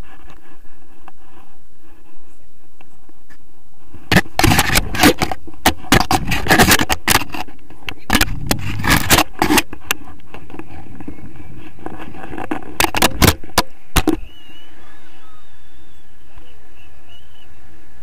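Wind rushing over a camera microphone during a tandem paraglider launch run. From about four seconds in, several seconds of loud knocking, scraping and jangling from the harness gear and camera pole, with a shorter burst of knocks near fourteen seconds, then the steady wind once airborne.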